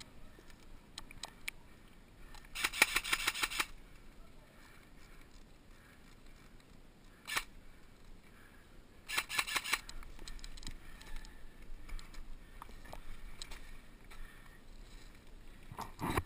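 Airsoft guns firing: a rapid full-auto burst about three seconds in and a shorter one near ten seconds, with a few single shots between.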